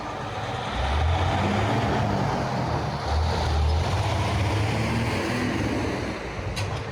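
A motor vehicle's engine rumbling low and unevenly in city street traffic, growing louder about a second in, with a brief click near the end.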